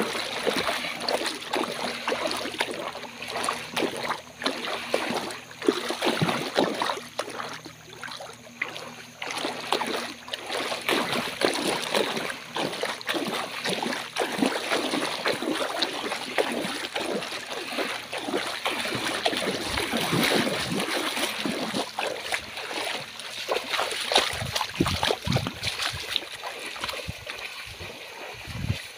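Rapid, irregular splashing and sloshing of feet and an orangutan wading quickly through shallow floodwater.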